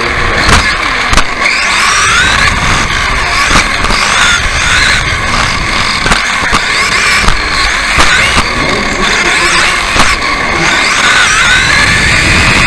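Onboard sound of an electric RC off-road buggy racing: the motor and gear whine rises and falls in pitch with the throttle over constant rolling noise, with sharp knocks from the chassis landing and hitting bumps.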